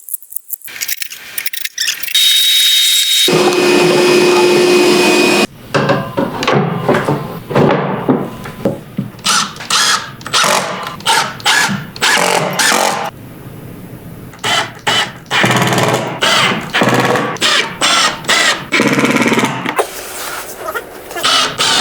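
Power tools working in the workshop: a steady motor whine runs for a few seconds near the start, then many short stop-start bursts of tool noise follow.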